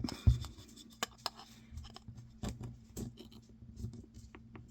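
Small hand tool scraping and clicking against a cell phone circuit board while prying at a metal shield to get a corner to peel up. A sharper knock comes just after the start.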